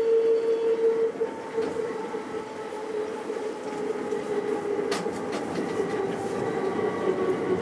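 Uijeongbu Light Rail's rubber-tyred VAL train running along the guideway, its steady motor whine drifting slowly lower in pitch as the train slows for a station, with a few sharp clicks from the running gear about five seconds in.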